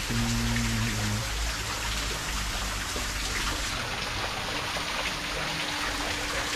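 Small waterfall trickling and splashing down a rock face into a pool: a steady watery hiss.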